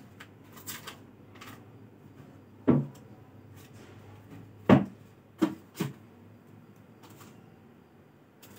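Four sharp knocks on something hard, heard against quiet room tone: one about a third of the way in, the loudest just past halfway, then two quick ones close together. A few faint clicks come in the first second and a half.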